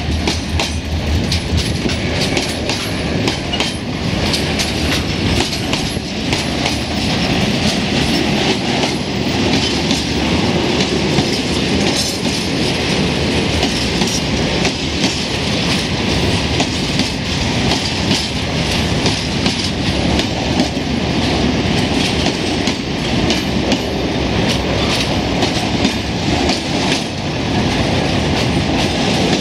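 Freight train of tank wagons rolling past: a steady rumble of wheels on rail with frequent clicks of wheels over the rail joints.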